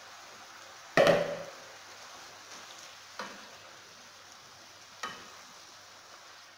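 Spinach sizzling in a pot on the stove as a wooden spoon stirs and turns it, with three knocks of the spoon against the pot, the loudest about a second in.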